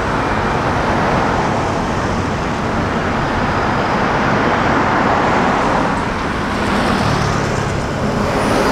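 Steady road traffic noise from cars on a city street.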